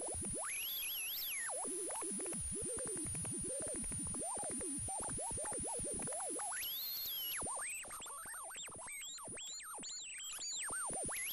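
Plasma ball's electrical noise picked up by a microphone and run through guitar effects software, giving synthetic electronic tones: a quick run of rising and falling pitch glides over a steady high whine, a little quieter about eight seconds in.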